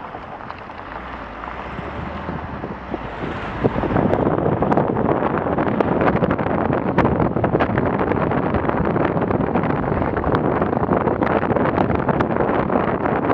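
Wind buffeting a car-mounted camera's microphone together with the car's tyres running over a gravel and dirt track, jumping much louder about four seconds in as the car speeds up from walking pace, with scattered sharp ticks through the noise.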